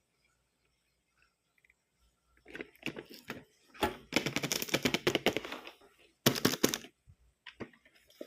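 Plastic packaging crinkling and crackling as it is handled and pulled open, in dense bursts of rapid crackles from about two and a half seconds in, loudest in the middle and again briefly a little later, with a single click near the end.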